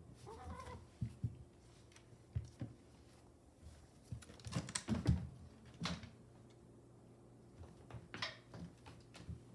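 A cat batting and pouncing on a mouse on the floor: scattered light thumps and scratchy taps, with a flurry of louder knocks about halfway through.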